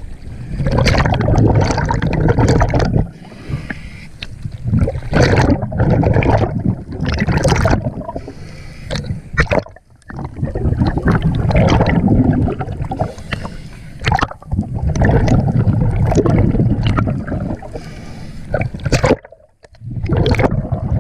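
Water sloshing and gurgling around a camera at and just below the sea surface, in loud, uneven bursts a second or more long.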